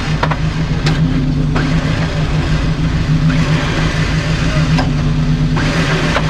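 Engine of an off-road vehicle stuck in mud, running steadily, with several louder surges of revving as it works to climb out, and a few sharp knocks.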